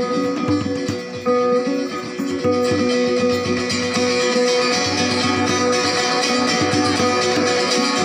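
Live acoustic ensemble playing: plucked and strummed guitars, a violin and an upright bowed fiddle holding long notes, with a hand drum keeping the beat. The playing grows fuller about two and a half seconds in.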